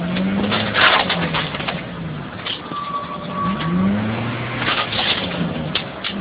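Car engine revving up and down several times as the car is forced along with a wheel clamp locked on one wheel, with repeated loud scraping and clunking bursts, the loudest about a second in.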